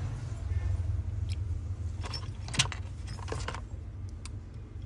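Light clicks and taps from a smartphone being turned over and handled in the fingers, with one sharper click about two and a half seconds in, over a steady low hum.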